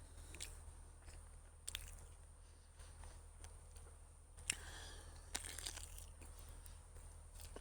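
A person biting into and chewing smoked pork sausage close to the microphone: quiet, with scattered sharp clicks and a busier stretch of chewing noise past the middle.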